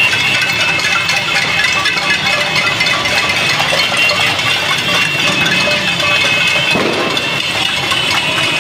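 Small motorcycle engines running amid a steady street-crowd din.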